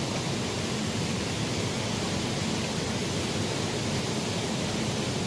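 Small shallow stream flowing over its bed, a steady rushing of water.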